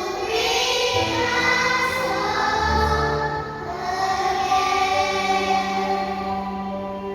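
A choir singing long held notes in several voice parts.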